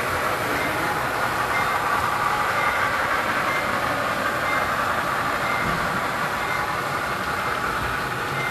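HO scale model diesel locomotives running along the layout track: a steady rolling whir of motors and wheels on rail, growing slightly fainter near the end as the consist moves away.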